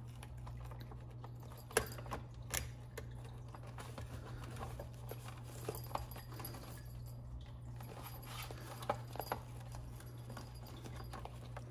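Scattered light clicks and taps of the plastic gearbox housing and rubber skin of a Big Mouth Billy Bass singing fish being handled and pressed back together, over a low steady hum.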